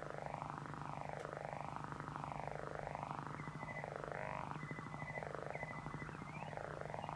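Electric guitar playing a sustained, droning texture through effects, its tone sweeping up and down about once a second over a steady low hum. Short, high, held tones sound now and then in the second half.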